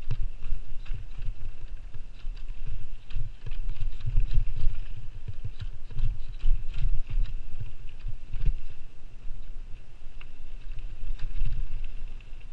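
Mountain bike descending a rocky dirt trail, heard from a helmet-mounted camera: a continuous low rumble of tyres and air rushing past, with frequent clicks and rattles of the bike over rocks and roots.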